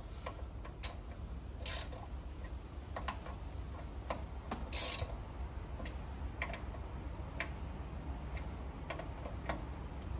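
Socket ratchet clicking in short irregular runs, with a couple of brief rasps, as the front brake caliper mounting bolts are tightened by hand, over a low steady background rumble.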